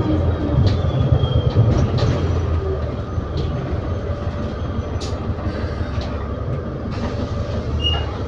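Interior sound of an ADL Enviro400 City double-decker bus with a Voith gearbox driving along: a steady low engine drone, with scattered light clicks and rattles from the bodywork.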